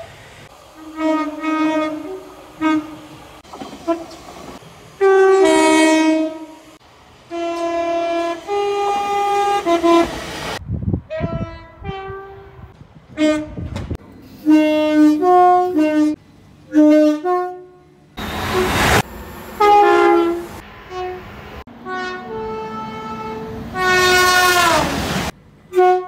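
Short blasts of British passenger trains' two-tone warning horns, high and low notes in turn, one clip after another with abrupt cuts between them. Near the end one horn falls in pitch.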